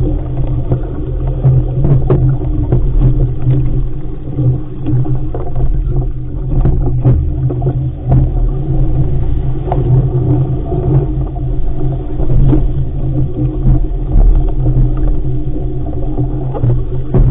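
Wind buffeting the microphone aboard an RS500 sailing dinghy: a loud, steady low rumble, with scattered light knocks from the boat.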